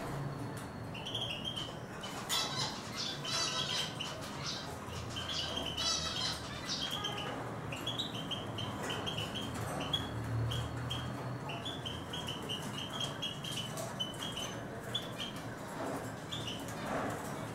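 Eurasian siskins twittering: a quick run of short, high chirps that goes on throughout, with a few buzzy trilled phrases in the first few seconds.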